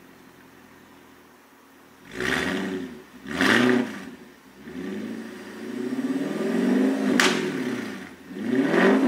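Audi S5 B8's 4.2-litre V8 through an Armytrix cat-back exhaust, idling quietly for about two seconds, then revved four times while standing still. The first two are short blips; the third is longer and climbs, ending in a single sharp crack; the fourth comes near the end.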